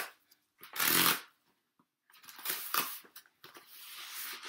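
A cardboard postal package being opened by hand: rustling and scraping of the packaging with a few small clicks, loudest in a short burst about a second in.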